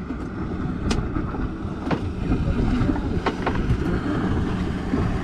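Wind buffeting the microphone on an open boat at sea, a steady low rumble with water noise, broken by a few sharp clicks about a second apart.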